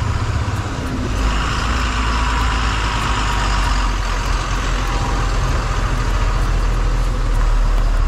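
Motorcycle ridden slowly over a rough gravel road past a large truck: steady engine and road rumble with wind on the microphone. A hissing rush swells about a second in and eases after about four seconds.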